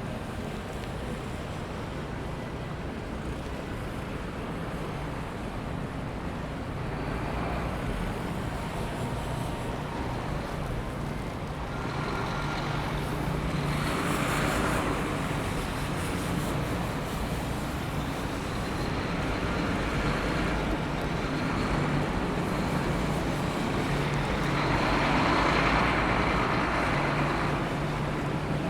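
City street traffic: a steady low rumble of engines, with vehicles passing and two louder passes, about halfway through and again near the end.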